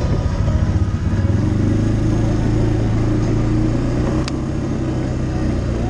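ATV engine running steadily while the quad rides along a rough dirt trail, with one sharp click about four seconds in.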